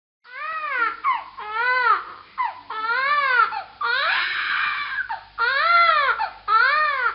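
Baby crying: about six wails in a row, each rising then falling in pitch, with short catches of breath between them. The cry just past the middle turns harsh and strained.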